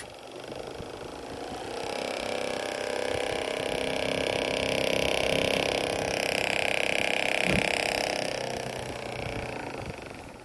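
Small 555 DC motor of a homemade mini lathe, driven through a PWM speed controller, whining as it spins a stack of EVA foam discs. Its speed is turned up over the first few seconds and back down near the end, with one brief knock in between.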